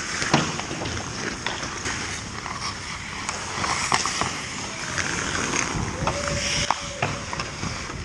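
Ice skate blades scraping and carving on rink ice as players and the goalie move around the net, with scattered sharp clacks of hockey sticks and puck.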